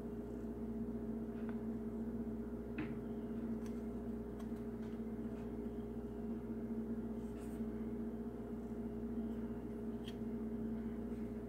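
Quiet room tone with a steady low hum and a few faint, light clicks as a plastic model car body is handled and turned in the fingers.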